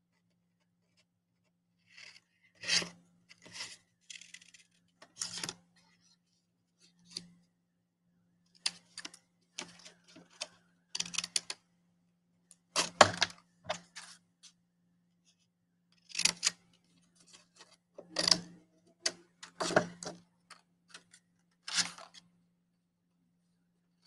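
Scissors snipping through a paper plate: short, sharp snips scattered irregularly every second or so, with pauses between them.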